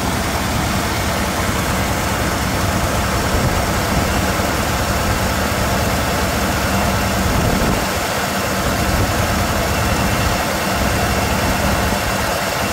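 A 1977 Chevrolet K5 Blazer's V8 idles steadily while still warming up from a cold start.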